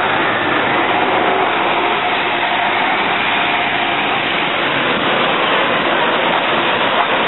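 Elevated subway train running on the steel el structure overhead: a steady, loud rumbling noise with a faint high whine.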